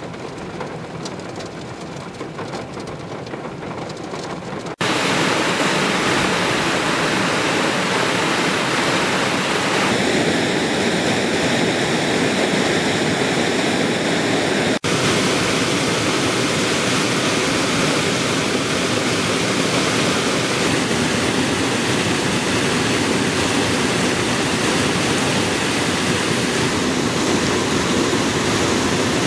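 Muddy floodwater rushing over a rocky ledge in a cascade, a steady loud roar of water. It is quieter at first and much louder from about five seconds in.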